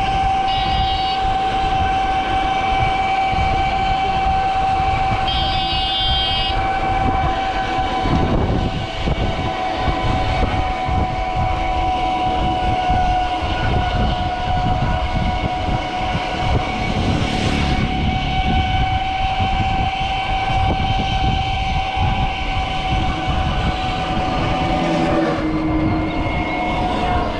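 Train running by with a low steady roar while its horn sounds one long held blast that stops a couple of seconds before the end. Two short, higher horn beeps come about one and six seconds in.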